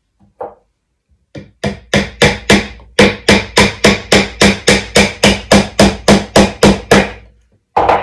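Hammer driving a nail into the wooden wall of a birdhouse: a light tap, then about twenty steady strikes, roughly three a second, growing louder partway through and stopping about seven seconds in. A single knock follows near the end.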